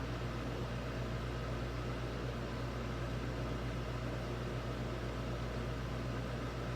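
A steady low hum under an even hiss, with no change and no thunderclap or other sudden sound.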